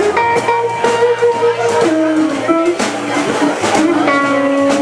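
Live jazz band of saxophone, electric guitar, keyboard and drums playing together, the melody moving in long held notes over the drums.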